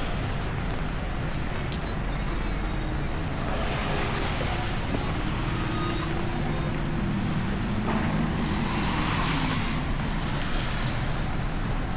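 Traffic on a rain-soaked city street: vehicles passing through the wet, with tyre spray hiss swelling twice, about four and nine seconds in, over steady rain and a low engine hum.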